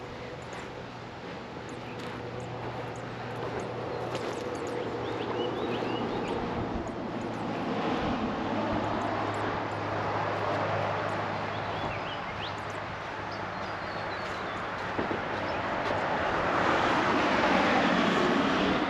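A motor vehicle passing on a nearby road, approaching and growing steadily louder, loudest near the end. Faint bird chirps sound over it.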